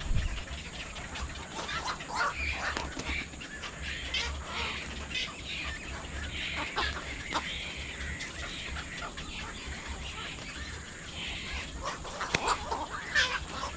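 Birds calling: a dense, ongoing run of short overlapping squawks and chattering calls, busiest near the end, over a steady low rumble.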